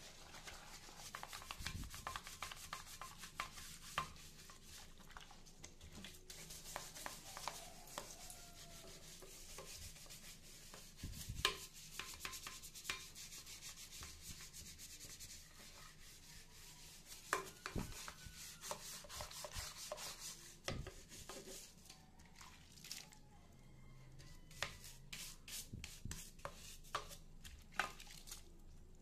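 Scrubbing a soapy ceramic bathroom sink and its chrome faucet by hand: a long run of quick rubbing strokes, with a few louder knocks now and then.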